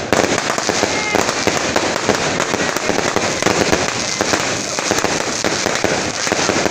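Fireworks going off without pause: a dense, continuous crackle of rapid pops.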